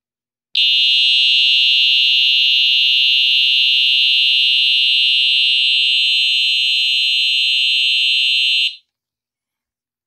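Simplex TrueAlert fire-alarm horn sounding one loud, steady, continuous shrill tone. It comes on about half a second in and cuts off abruptly near the end.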